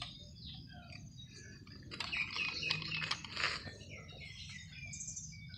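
A burst of rapid rustling and clicking about two seconds in, lasting a second or so, as a fish is handled in a black weigh sling, with birds chirping.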